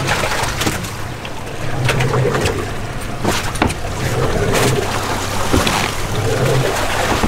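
A boat's engine idling, a steady low hum under wind and water noise. Several sharp knocks and clicks are scattered through it.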